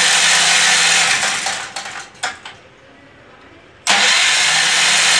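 Hydro Power 4400 portable generator's engine turned over by its electric starter from the key switch without catching: cranking for about two seconds, stopping, then cranking again about four seconds in. The mechanic puts the no-start down to no compression from the valves in the head.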